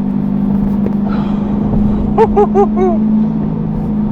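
2020 Chevrolet C8 Corvette's 6.2-litre V8 running at a steady cruise, a constant low drone. About two seconds in there is a quick run of four short, high chirps.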